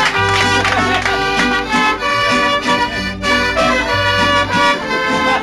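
Live mariachi band playing an instrumental passage between sung verses: a melody line over long, deep bass notes.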